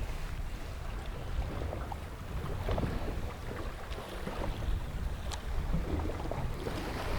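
Wind gusting across the microphone in a steady low rumble, with choppy water lapping and knocking against a small boat's hull now and then.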